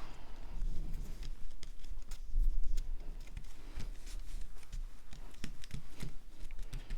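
Cardstock pieces being handled and pressed together on a work surface: scattered light taps and clicks with soft paper rustling.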